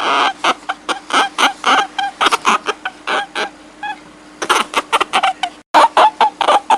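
A rapid series of short, high-pitched animal cries, many in quick succession, over a steady low hum. The sound cuts out for an instant near the end.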